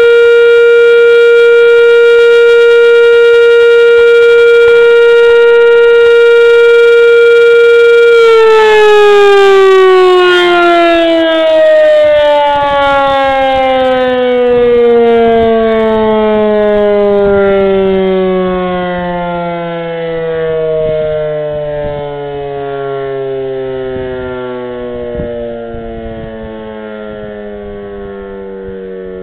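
Federal Fedelcode siren sounding one steady, loud tone; about eight seconds in the pitch begins to fall and keeps sliding down slowly, fading, as the rotor winds down.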